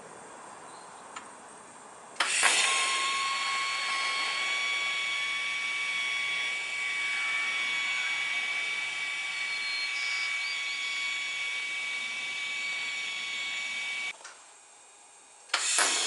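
A small high-speed power tool starts suddenly about two seconds in and runs with a steady high whine, working in the metal-sculpture shop. It stops about two seconds before the end, then starts again just before the end.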